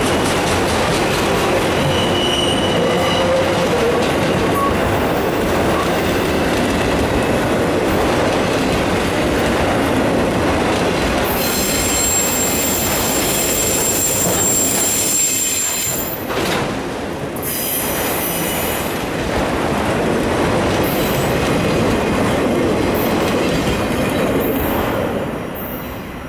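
Freight train's autorack cars rolling past, steel wheels rumbling on the rails. A high steady squeal runs from about 11 to 16 seconds in. The sound falls away near the end as the last car passes.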